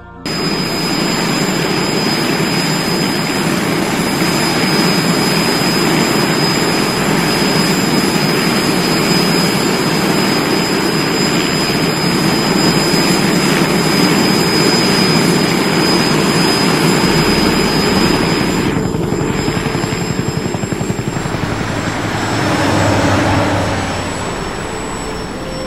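Helicopter turbine engine and rotor running steadily, a dense rumble under a high turbine whine. It starts abruptly and eases off a little near the end.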